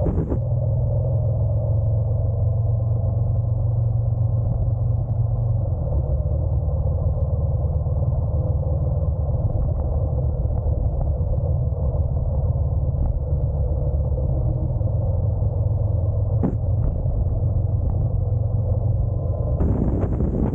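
Honda NC750X's parallel-twin engine and road noise heard from the moving motorcycle: a steady, muffled low rumble, shifting slightly lower about six seconds in. A brief click comes near the end.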